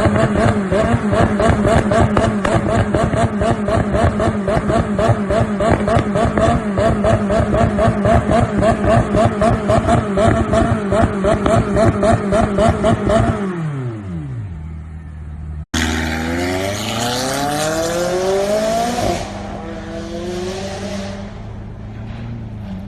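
McLaren supercar engine running hard with a fast, regular pulsing, then the revs falling away about two-thirds of the way through. After an abrupt cut the engine revs climb as the car accelerates, drop sharply near the end, and settle to a steady lower note.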